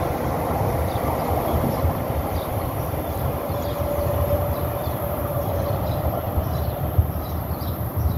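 Metro-North electric multiple-unit commuter train pulling away down the track, its wheels on the rails making a steady low rumble, with a brief steady whine near the middle.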